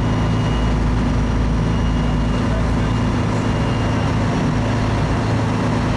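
Fishing boat's engine running at a steady drone, with a constant hiss over it.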